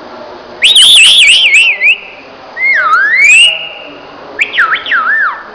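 Parrot whistling three loud phrases: the first and last warble rapidly up and down, and the middle one dips, then rises.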